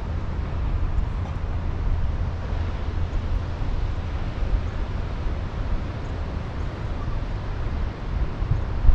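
Wind buffeting the microphone: an uneven low rumble with a fainter hiss over it.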